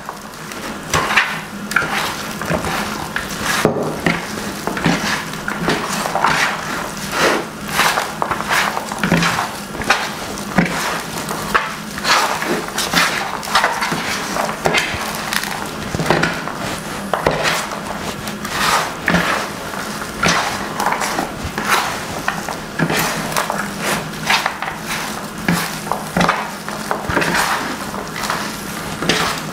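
Bare hands squeezing and mixing a wet minced-meat filling with chopped onion and coriander in a plastic bowl: a continuous, irregular squishing and squelching, several strokes a second.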